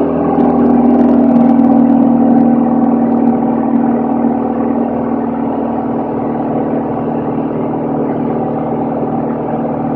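Steady drone of a Van's RV-10's piston engine and propeller, heard inside the cabin in cruise flight. A low hum swells a little in the first few seconds, then holds.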